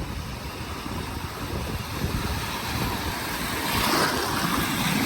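Ocean surf washing and breaking on the beach, with wind buffeting the microphone; a wave washes in loudest about four seconds in.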